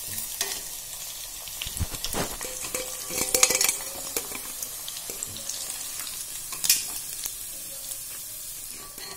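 Hot oil sizzling steadily as prawns deep-fry in an iron kadai. A steel slotted spoon knocks and scrapes a few times as it lifts the fried prawns out, loudest about three and a half seconds in and again near seven seconds.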